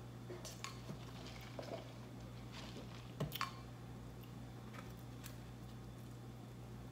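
A person chewing food with the mouth closed: a few soft, wet mouth clicks in the first three and a half seconds, then only a steady low hum.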